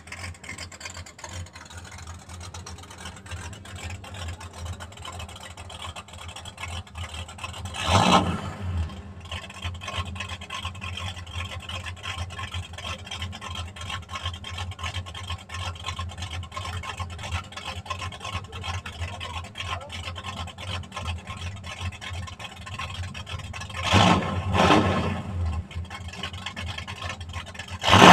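Ford Maverick GT's 302 Windsor V8 idling with a steady low rumble, blipped briefly about eight seconds in and twice more in quick succession near the end.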